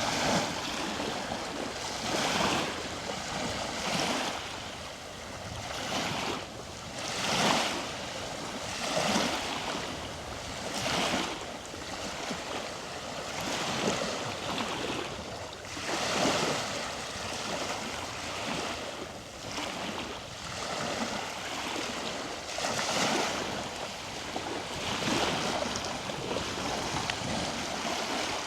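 Small ocean waves breaking and washing on a beach, surf noise swelling and falling every second or two, with some wind on the microphone.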